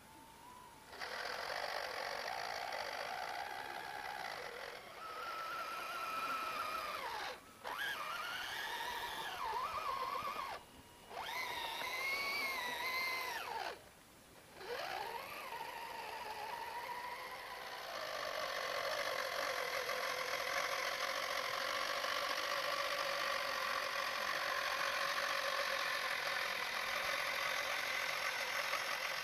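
Electric drive motor and gearbox of an RC model 6x6 trial truck whining as it crawls through sand and rocks, the pitch rising and falling with the throttle and cutting out briefly a few times. From about two-thirds in it runs on more steadily.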